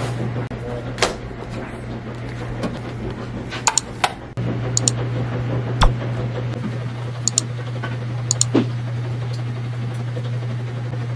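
A steady low hum with scattered sharp clicks and taps, some in quick pairs; the sound dips and jumps back a little under halfway through.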